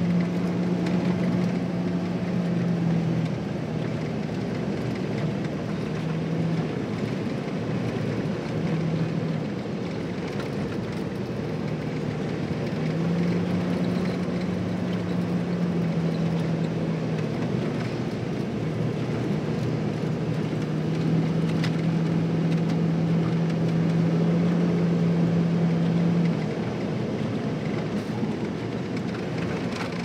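Cabin noise inside a 2002 Jeep Wrangler TJ driving on a snow-covered road: a steady low engine drone that swells and fades in stretches over a constant haze of tyre and wind noise.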